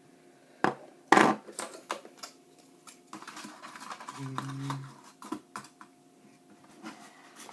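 Irregular plastic clicks, taps and knocks of a laptop power adapter and its parts being handled and set down, with light rustling between them.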